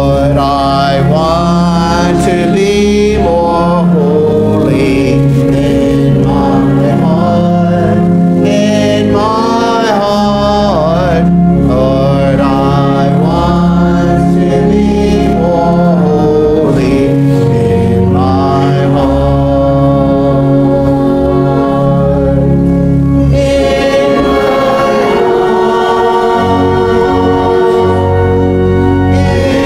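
Choir singing a hymn with organ accompaniment, the voices wavering with vibrato over held low organ chords.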